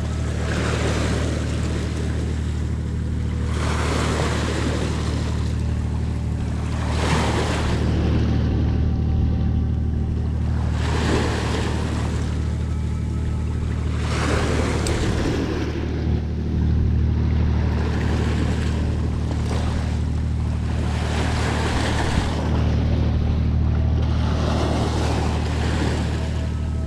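Small sea waves washing up onto a pebble and rock shore, surging every few seconds, over a steady low engine drone from a nearby ship.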